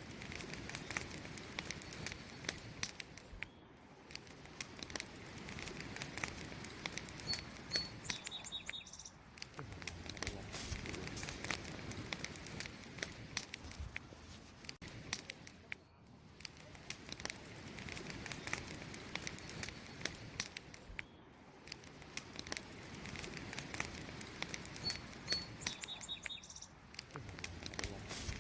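Wood campfire crackling, with a dense, irregular run of sharp pops and snaps over a soft hiss of burning that swells and fades. Twice a short, high bird chirp sounds faintly.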